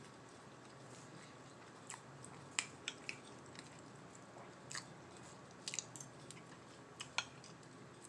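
A man chewing baked mozzarella sticks and fries close to the microphone, with a scatter of short sharp mouth clicks and crunches, the loudest about two and a half seconds in.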